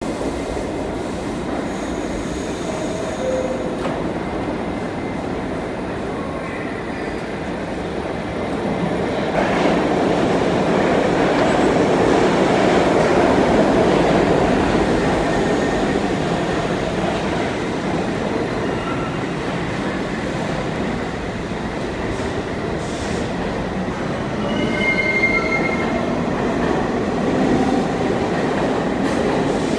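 Westinghouse-Amrail R68 subway train standing at an underground platform with a steady rumble, swelling louder for several seconds near the middle. Near the end it pulls out, with a few short high wheel squeals as it moves off.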